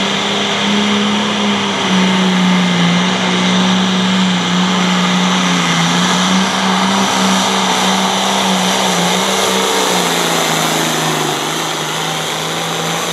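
Turbocharged diesel engine of a light limited pro stock pulling tractor running flat out under load as it drags the weight sled. The engine note holds steady, then drops a little in pitch about ten seconds in as the pull winds down.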